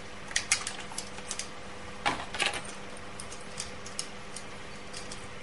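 Intel stock CPU heatsink fan being handled, its plastic parts giving scattered light clicks and short rustles, with a denser cluster about two seconds in.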